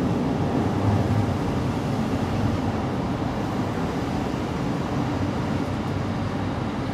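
Mother cat purring close to the microphone as her kitten nestles against her: a steady low rumble.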